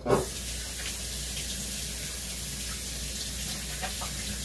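Kitchen faucet running steadily into the sink.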